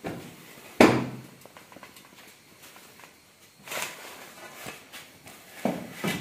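A sharp knock about a second in, then scraping and rustling as plastic curtain eyelet rings and cloth are slid along a wooden pole.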